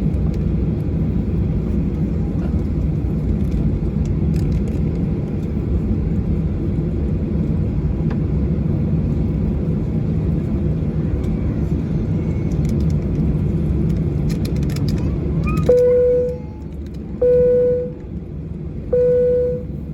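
Steady low rumble of a Boeing 737-800's cabin. Near the end the rumble drops away and a single-pitched beep-like tone sounds three times, about a second and a half apart.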